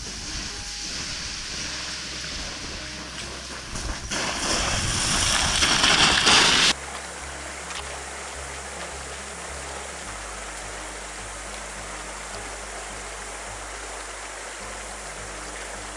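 A rushing noise that swells to its loudest and cuts off abruptly about six and a half seconds in, then the steady rush of a shallow river running over rocks. Low background music plays underneath.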